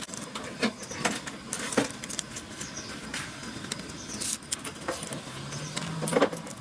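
Irregular metallic clinks and knocks of tools and metal parts being handled during repair work on a truck starter motor. A steady low hum comes in about five seconds in.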